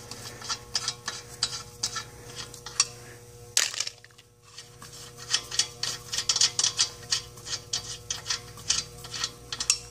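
Runs of quick metallic clicking as a hand ratchet wrench undoes the lug bolts on a Smart car's front wheel, with one louder clack about three and a half seconds in, over a faint steady hum.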